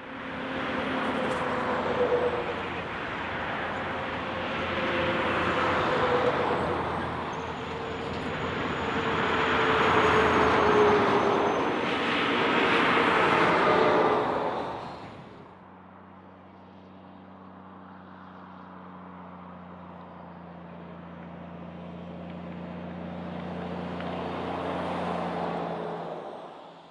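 Heavy diesel truck passing on a highway: loud tyre and engine noise swells and fades over about fifteen seconds, with the engine note dropping slightly. It cuts off suddenly, and a quieter, steady low engine hum then slowly grows louder before dropping away at the end.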